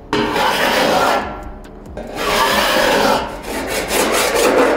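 Body file scraping across the steel of a freshly welded-in Holden Torana LJ lower quarter panel, file-finishing it: three long strokes, each a second or more, with short pauses between.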